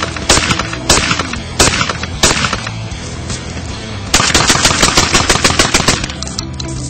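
Beretta Xtrema2 semi-automatic 12-gauge shotgun firing: a few shots about half a second to a second apart, then about four seconds in a rapid string of shots lasting about two seconds, showing how fast the action cycles.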